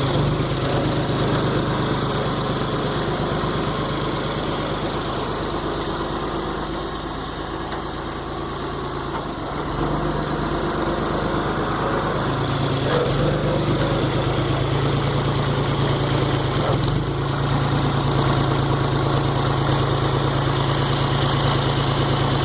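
An engine running steadily at low revs, easing off in the middle and picking up again.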